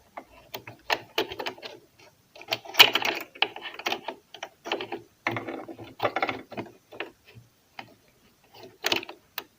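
Irregular clicks and short rattles of small metal parts being handled and fitted back into a domestic sewing machine's mechanism during reassembly. The clicks come in clusters and stop for a moment near the end before a couple more.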